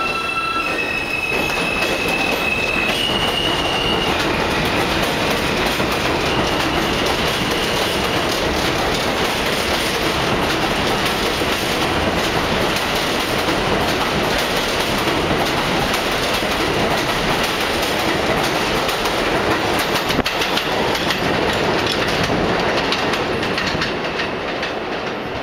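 R160A subway train accelerating out of the station on the express track and running past close by. The wheels clatter over the rail joints steadily, and over the first few seconds the electric traction motors whine, stepping up in pitch. The sound fades near the end as the train pulls away.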